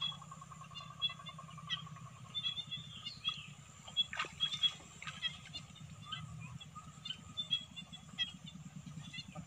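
A small engine running with a steady low pulsing drone, with scattered short bird chirps over it and a single sharp knock or splash about four seconds in.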